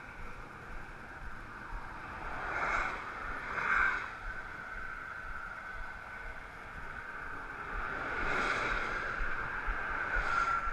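Highway traffic going past, a steady rushing with vehicles swelling louder and fading as they pass, a pair about a third of the way in and another pair near the end.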